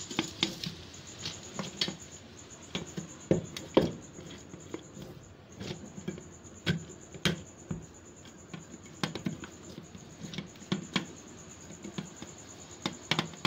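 Irregular light knocks and clicks of steel cookware being handled with a cloth: a pot lid and a metal tray. A faint steady high whine runs underneath.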